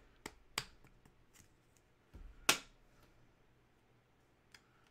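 Trading cards being handled: a few light clicks, a dull bump about two seconds in, then one sharp snap.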